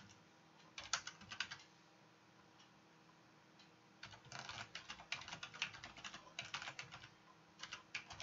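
Computer keyboard keys clicking as code is typed: a short burst of keystrokes about a second in, a pause, then a quick run of keystrokes from about four seconds on.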